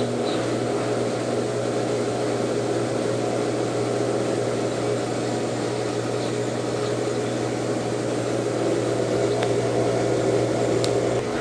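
Consul Facilite 10 kg washing machine running through its rinse-and-spin program, its motor giving a steady, even hum.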